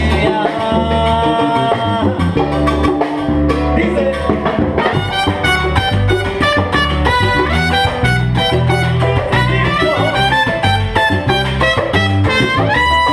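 Live salsa band playing: trumpet lines over congas, drum kit, piano and bass. Near the end the horns hold a long high note.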